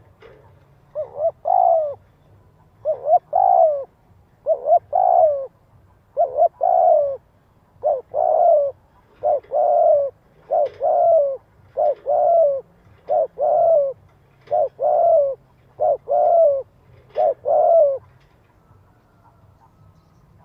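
Spotted dove cooing over and over: about a dozen short phrases of two or three coo notes, one roughly every second and a half, stopping about 18 seconds in. It is the dove's rapid, insistent territorial call.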